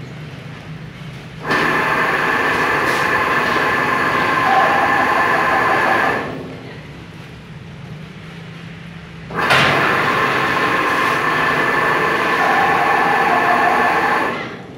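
Plate rolling machine running as its rollers turn a large curved steel plate: two loud runs of steady mechanical noise of about five seconds each, with a lower steady hum between them.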